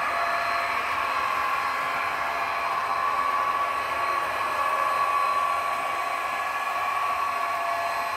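Model train running on a layout's helix: the steady whir of the locomotive's motor and gearing, with a constant high whine and the wheels rolling on the track.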